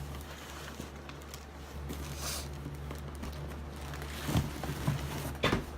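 Light handling and rustling of camera accessories and their cases, then a few short knocks in the last second and a half, the last of them something being dropped. A steady low hum runs underneath.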